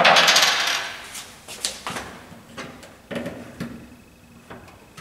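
Handling noise: a loud rattling clatter right at the start that dies away within about a second, then a few light knocks and taps, as hands work the red sampling pipes at the top pipe inlets of a wall-mounted smoke detector.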